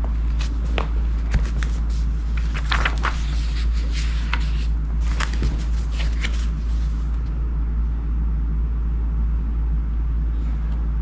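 Pages of a thick paperback workbook being turned and handled: a string of short paper rustles and flicks over the first seven seconds or so, then they stop. Underneath is a steady low rumble.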